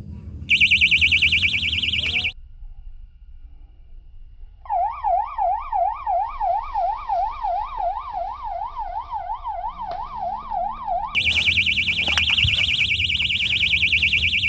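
Electronic fishing bite alarms going off with siren-like warbles. A high, fast warble sounds for about two seconds, then a lower tone sweeps up and down about three times a second from about four seconds in. The high warble starts again near the end. The alarms signal a fish pulling a rod over.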